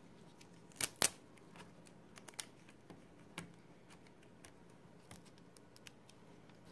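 Fingers handling adhesive tape and the video-cable connector on a laptop LCD panel: faint rustling with scattered small clicks, two sharper clicks about a second in.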